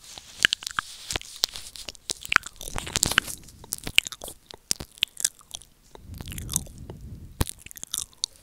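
Wet ASMR mouth sounds ("ear eating") made right against a wired earphone's microphone: rapid, irregular clicks and smacks, with fuller, breathier stretches about three seconds in and again around six to seven seconds.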